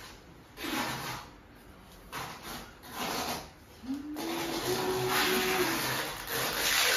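Long electrical cable being coiled by hand: a series of rubbing, swishing strokes as the wire is pulled through the hand and looped, the last one longer and joined by a short steady hum about halfway through.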